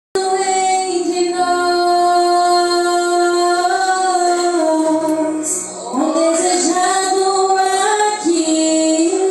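A woman's voice singing a worship song in long held notes, changing pitch in steps with a short break about halfway through, over quieter musical accompaniment.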